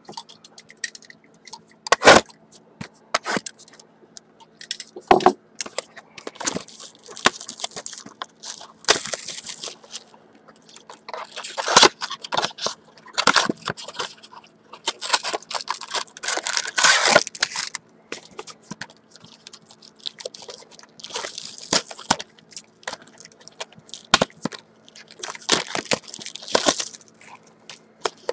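Plastic shrink wrap crinkling and tearing as it is stripped off a Topps Strata trading card box, with irregular cardboard scrapes and knocks as the box is handled and tipped open.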